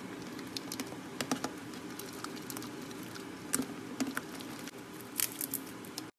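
Silicone spatula stirring thick, sticky glue slime in a glass bowl: scattered wet clicks and pops over a steady stirring hiss, with the glue just turning into slime. The sound cuts off abruptly near the end.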